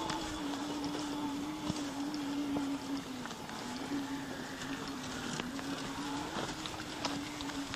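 Electric motor of an off-road mobility scooter whining steadily, its pitch wavering a little, with scattered clicks and knocks.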